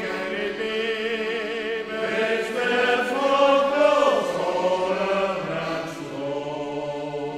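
Male shanty choir singing the chorus of a sea shanty in long held notes, with accordion accompaniment.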